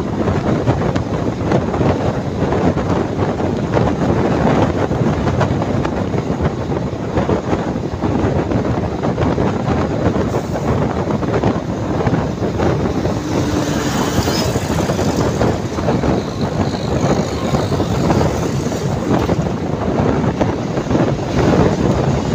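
Steady rushing wind and road noise of a bus travelling at highway speed, picked up from a seat by the window.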